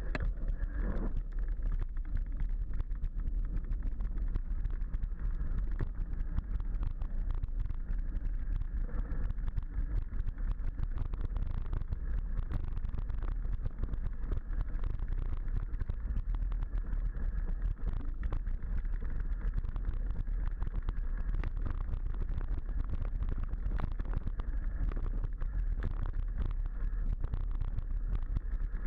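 Mountain bike descending a rocky dirt trail at speed: a steady rumble of tyres over the ground, with constant small rattles and knocks from the bike and the handlebar-mounted camera jolting over rocks.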